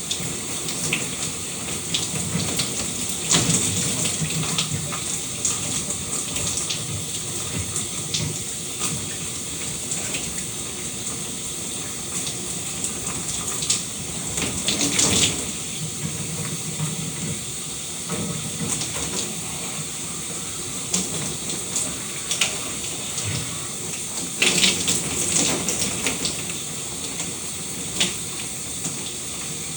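Running shower water, a steady hiss of spray falling on a hard surface, with brief louder splashes now and then.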